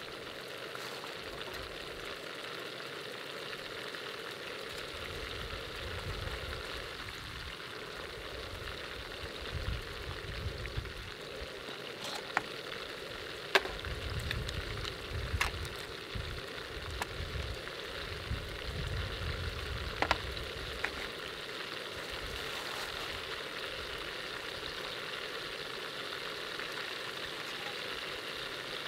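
Olive-oil ajillo sizzling steadily in a pan. A few sharp clicks and knocks come in the middle stretch, along with some low rumbling.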